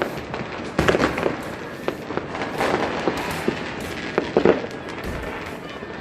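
New Year's fireworks and firecrackers going off all around: a continuous crackle of bursts and bangs, with louder clusters of bangs about a second in and again about four and a half seconds in.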